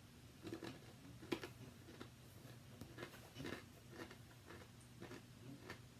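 Faint, irregular crunching and clicking of a baked cookie being bitten and chewed.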